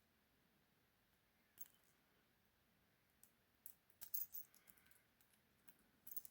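Faint metallic clicks and light rattling of a small lock pick and tension wrench working the pins of a 20 mm brass padlock. The clicks are scattered and sparse, with the loudest cluster about four seconds in.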